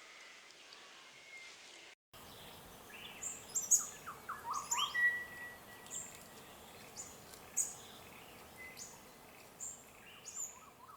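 Small birds calling: a run of short, high chirps that drop in pitch, one every second or so, with a few lower notes mixed in. The audio breaks off briefly about two seconds in before the chirping starts.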